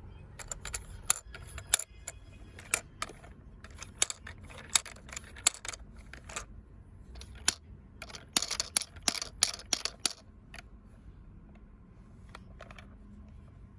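Shape sorter toy pieces clicking and clacking as they are handled and dropped into the sorter, in scattered single knocks at first and then a quick run of louder clatters; the clicking stops about ten seconds in.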